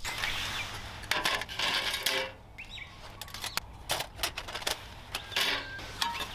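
Irregular clinks and knocks of metal gear being handled, with a short bird chirp about two and a half seconds in.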